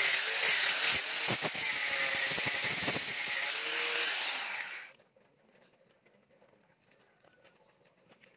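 Corded angle grinder with a thin disc running against a painted metal bar: a steady high whine with grating from the disc on the metal. It fades out about five seconds in, leaving silence.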